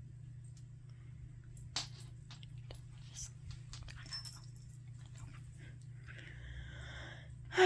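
Cats worked up on catnip and silvervine, rolling and scuffling: faint scattered rustles and light clicks, with a longer scuffle near the end, over a steady low hum.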